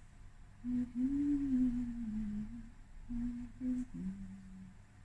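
A woman humming a slow tune to herself: one long phrase that rises and falls, then a few shorter notes and a lower held note.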